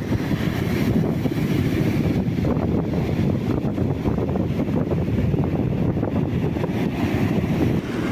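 Strong wind buffeting the microphone in a steady low rumble, over the noise of stormy sea surf.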